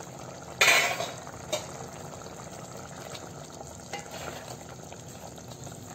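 Chicken curry simmering in a steel pot, bubbling and being stirred with a wooden spatula. A brief loud clank about half a second in is the loudest moment.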